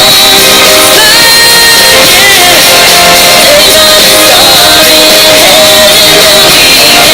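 Loud, steady music with singing, a pop or rock song with vocals over instruments.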